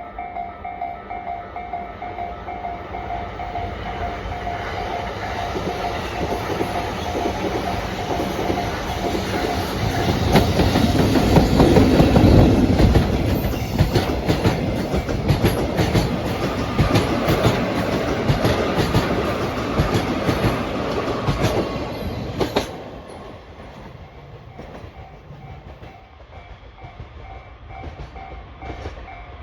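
Level-crossing alarm ringing in a steady rapid pulse while a freight train passes: an EF65 electric locomotive hauling a new subway-car set, rumbling louder to a peak about twelve seconds in, then wheels clacking over the rail joints. The train noise cuts off sharply about 23 seconds in, leaving the crossing alarm ringing.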